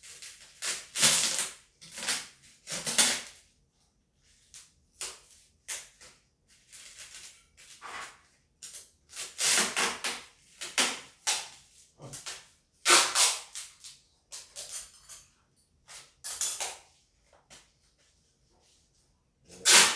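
Packing tape pulled off the roll and wound around a coiled package in repeated short, noisy pulls, some louder than others, with brief quiet gaps between.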